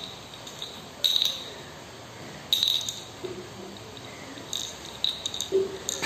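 Bottle cap clinking and rattling on a hard surface as a parrot knocks it about: a handful of sharp clinks, each ringing briefly, at irregular intervals.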